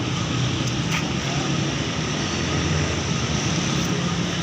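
A steady engine-like drone with a low hum and even background noise, holding level throughout.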